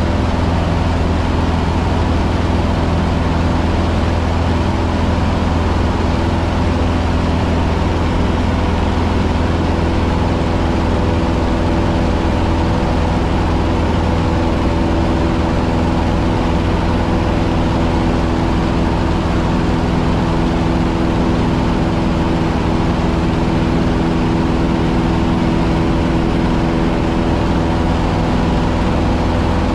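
Cessna 150's four-cylinder Continental O-200 engine and propeller running steadily, heard from inside the cockpit as a constant drone.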